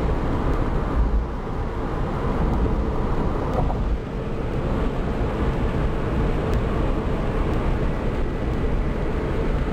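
A car driving on a road, with steady engine and road noise and a deep rumble underneath.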